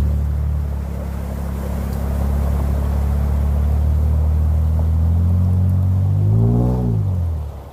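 Pickup truck engine running steadily at low revs. About six seconds in it revs up and drops back, then the sound falls away.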